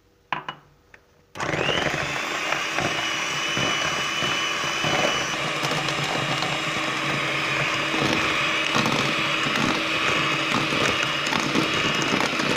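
Electric hand mixer switched on about a second in, its motor whining up to speed and then running steadily as its twin beaters whip eggs and icing sugar; it cuts off suddenly at the end.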